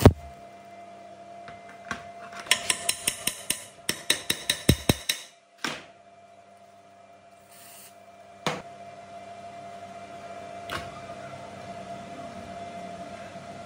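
A stick-welding arc cuts off with a sharp crack, then a quick, even run of light metal-on-metal taps, about five a second, on the old water pump motor's cast end cover and the steel bar welded to it. A few single metal knocks follow, over a steady hum.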